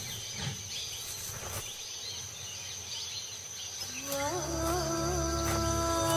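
Forest ambience: a steady high insect drone with faint bird chirps. About four seconds in, soundtrack music with long held notes enters and becomes the loudest sound.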